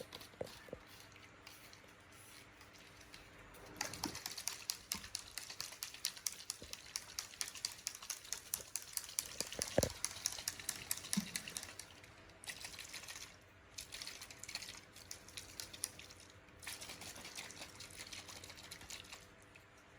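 Baby monkey suckling milk: a fast run of small wet clicks and smacks, with a short pause near the middle and shorter spells of it after that.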